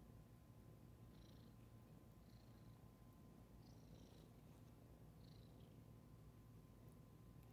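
Domestic cat purring faintly, a steady low rumble, with a few brief faint high chirps over it.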